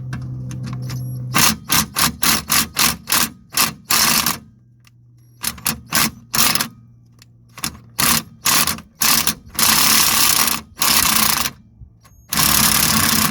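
Impact wrench hammering on a rusted 10 mm handbrake-cable bracket bolt in many short trigger bursts, with a few longer runs near the end. The trigger is feathered gently so the corroded bolt doesn't snap.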